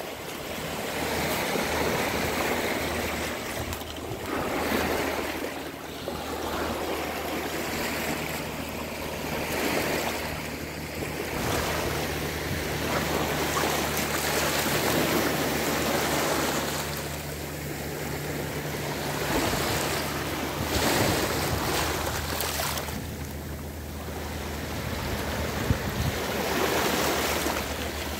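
Small sea waves washing in and out over a pebble beach, the surf swelling and fading every few seconds, with a faint steady low hum underneath.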